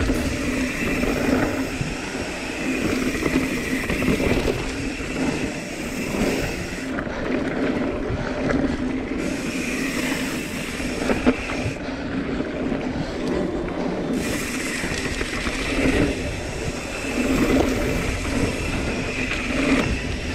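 Intense Primer mountain bike ridden at speed down dirt singletrack: tyres rolling and scraping over packed dirt, the bike rattling over bumps, with wind rushing over the camera microphone.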